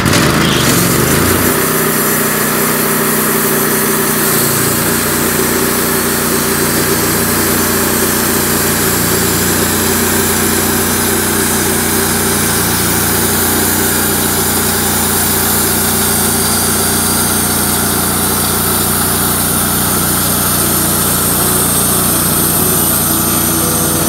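Wood-Mizer LX150 portable band sawmill running steadily at full throttle as the blade cuts a board from a red oak cant.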